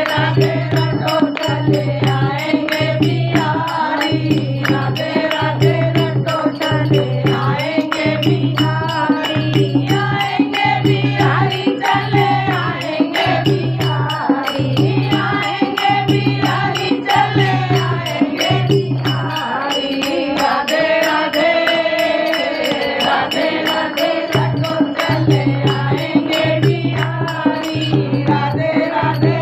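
Women singing a Hindu bhajan together, accompanied by a dholak barrel drum and small hand cymbals. The drum keeps a steady beat of about one stroke a second and drops out for a few seconds past the middle.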